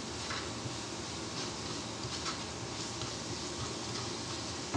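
Diced onions frying in oil in a nonstick pan: a steady, gentle sizzle, with a wooden spoon scraping and stirring through them now and then and a sharp tap near the end.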